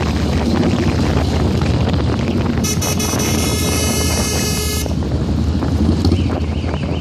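Motorcycle riding with engine rumble and wind on the microphone; a vehicle horn sounds steadily for about two seconds in the middle. A warbling tone begins near the end.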